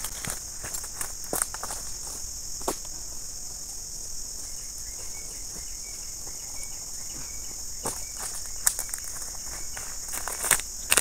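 Steady high-pitched insect chorus, with scattered light knocks and rustles and a few footsteps on leaf litter near the end.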